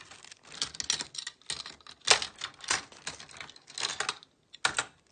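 Irregular clicks and rustles of small hard objects being handled at close range, some strokes sharp and loud, with short pauses near the end.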